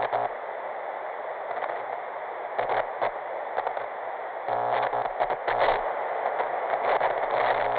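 Television static: a steady, slightly muffled hiss of white noise with scattered crackles, crackling more densely a little past the middle.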